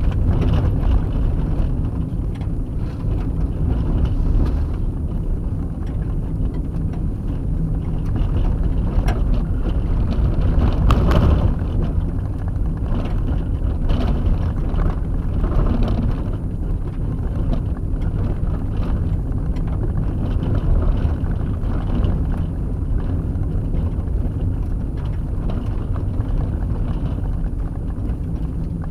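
A vehicle driving on a dirt road, heard from inside the cabin: steady low road and tyre rumble, with a few sharper knocks along the way.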